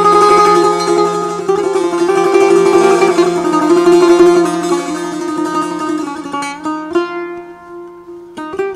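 Two setars, Persian long-necked lutes, playing together in the Afshari mode: a dense run of fast plucked notes that thins out about six seconds in to separate plucked notes that ring and fade.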